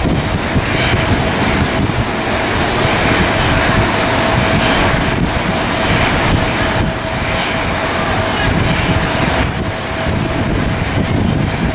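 Airliner jet engines running, a loud steady rumble with a thin steady whine, mixed with wind buffeting the microphone.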